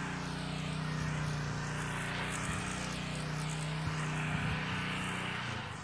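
An engine running at a steady pitch, a low even hum that cuts off abruptly just before the end.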